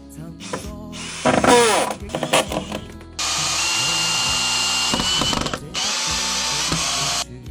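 An electric power tool runs steadily for about two and a half seconds, stops briefly, then runs again for just over a second, over background music.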